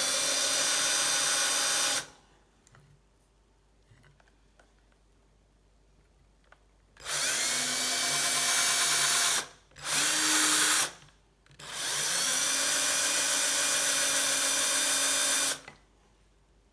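Small electric drill drilling weight-saving holes into a bicycle quick-release skewer, running in separate bursts. The first run stops about two seconds in, and three more runs follow from about seven seconds in, the last lasting about four seconds. The motor's whine rises in pitch as each run starts.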